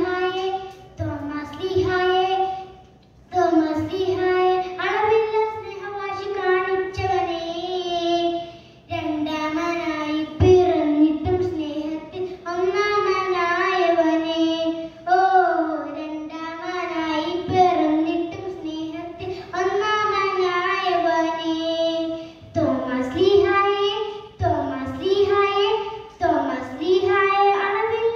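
A young girl singing a solo song into a microphone, unaccompanied, in melodic phrases with long held notes and brief pauses between them.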